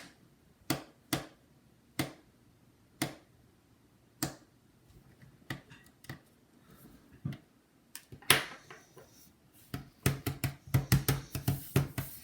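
Sharp, scattered clicks of a precision screwdriver and small screws on a laptop's plastic bottom case as the screws are taken out, then a rustle and a quick flurry of clattering plastic handling noises near the end.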